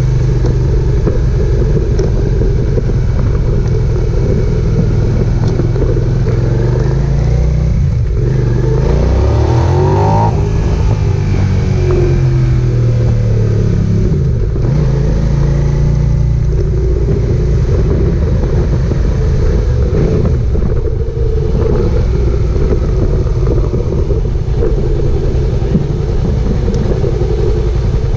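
Suzuki SV650S's 645 cc V-twin engine running steadily under way. About ten seconds in, the revs rise sharply and then fall back.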